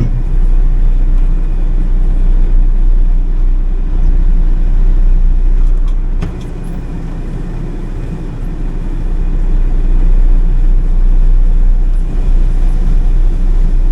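Heavy farm machine's diesel engine running hard with a deep, steady rumble. It eases off about six seconds in and climbs back to full power a few seconds later, enough load to make it smoke.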